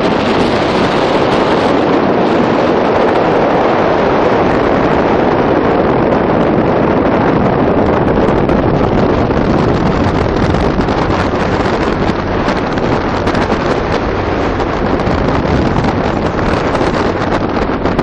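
Steady wind rushing over the microphone on a moving boat at sea, with the boat's engine and water noise beneath it.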